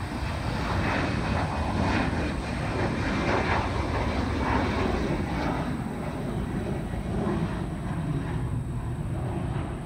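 Embraer E190 airliner's twin GE CF34-10E turbofans at takeoff power as it climbs out, a steady jet roar with a deep rumble that eases off slightly in the second half as the jet pulls away.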